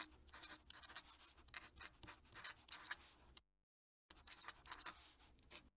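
Faint scratching of a fountain pen nib across paper in quick, uneven strokes as a signature is written. The scratching stops for a moment about three and a half seconds in, then picks up again.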